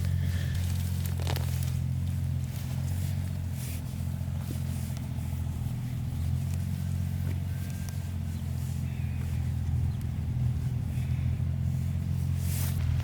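A motor engine running at a steady pitch, with a few rustles and scrapes over it.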